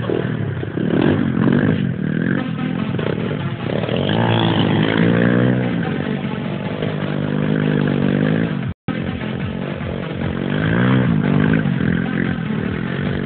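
Small pit bike engine revving up and down again and again as the rear wheel spins on loose gravel while the bike turns in tight circles. The sound cuts out for a moment about two-thirds of the way through.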